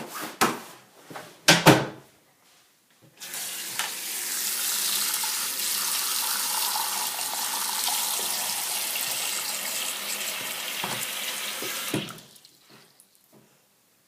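A sink tap turned on about three seconds in, water running steadily into the basin for about nine seconds, then shut off. A few short knocks and clicks come just before it.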